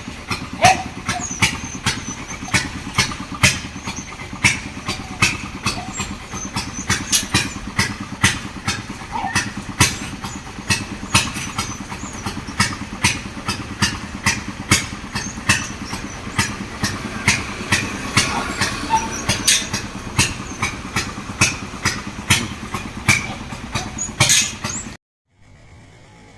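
A motor running steadily with sharp, regular clicks about two to three a second; it cuts off abruptly near the end.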